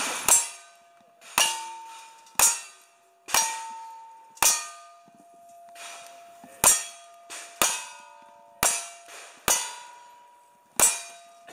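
Ten gunshots from single-action revolvers, about a second apart with a longer pause after the fifth, each answered by the ringing clang of a hit steel target plate. Ten shots with a break in the middle fit two five-round revolvers, one emptied after the other.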